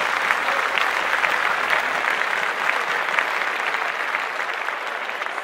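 Audience applauding at the end of a song, slowly dying down toward the end.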